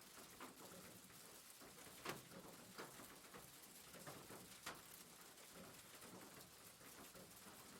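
Faint rain on a roof: a steady patter of drops with a few louder single drips landing now and then.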